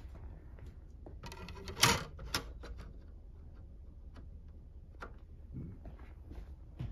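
Disc player's motorized tray whirring briefly and stopping with a sharp click, a second click half a second later, then faint clicks and handling as a DVD is laid into the open tray.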